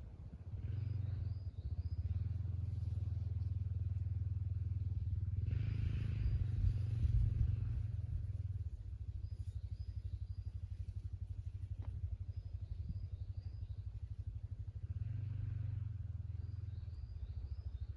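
ATV engine running throughout, swelling louder twice.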